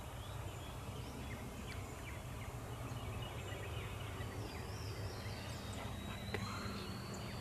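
Quiet field ambience with a steady low hum and faint songbirds chirping; a thin rising whistle runs through the second half.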